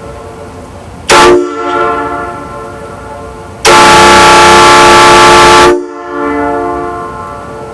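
Multi-chime air train horn sounding a chord of several notes, very loud. There is a short blast about a second in, then a long blast of about two seconds midway. Each blast trails off in a fading echo.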